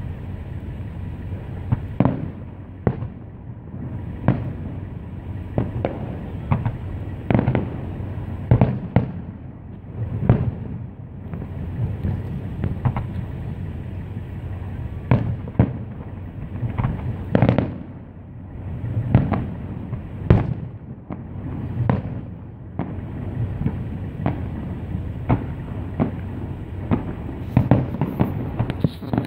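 Fireworks display: aerial shells bursting in an uneven run of bangs, roughly one a second and sometimes in quick clusters, over a continuous low rumble.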